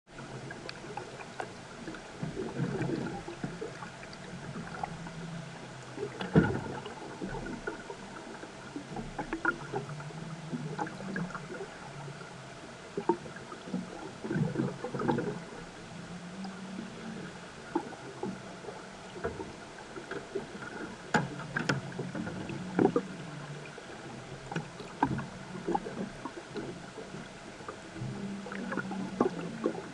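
Underwater water noise inside a rotary screw trap's livebox: a steady churning hiss with a low rumble that swells and fades unevenly, broken by scattered knocks and clicks, the loudest about six seconds in.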